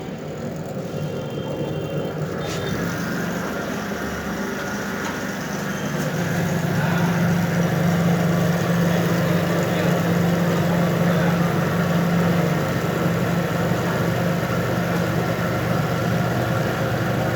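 A motor running with a steady low hum that grows louder about six seconds in.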